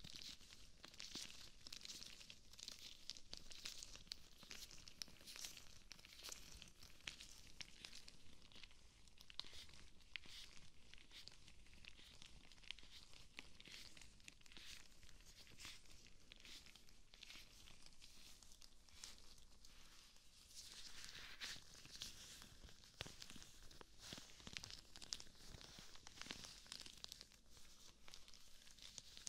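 Rubber gloves rubbed together and flexed close to the microphone: a faint, continuous crinkly rustling and squeaking with many small snaps.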